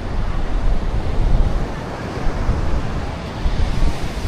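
Sea surf washing on the beach, with wind buffeting the microphone in a steady, rumbling noise.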